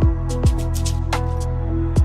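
Background music with a steady beat: a kick drum about twice a second under held synth chords.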